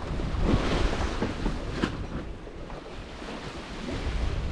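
Wind buffeting the microphone while the spinnaker's cloth flaps and rustles as it fills, with a couple of sharper snaps about half a second and just under two seconds in, over the rush of the sea around the sailboat.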